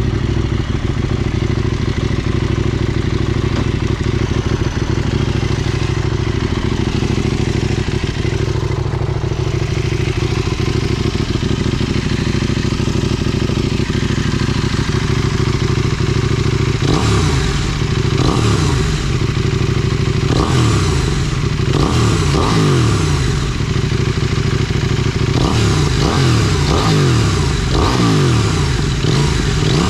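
KTM 790 Duke's 799 cc parallel-twin engine through an IXRace MK2 aftermarket exhaust, holding a steady engine speed. About halfway through, the revs start climbing and dropping back again and again.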